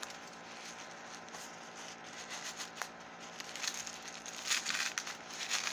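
Packing paper rustling and crinkling as it is pulled and unwrapped by hand, getting louder and more crackly a little past halfway.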